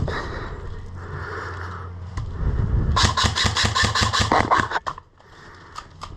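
Airsoft electric rifle firing a rapid burst of about ten shots in under two seconds, about three seconds in, each shot a sharp snap over the whirr of the gearbox.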